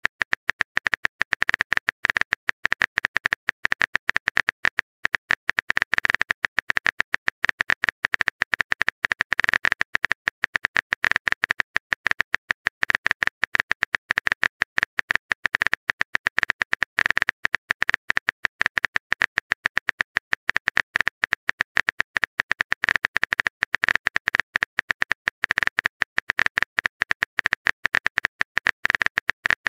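Rapid keyboard-typing click sound effects from a texting-story app, one short click per keystroke, in a steady fast stream as a long message is typed out.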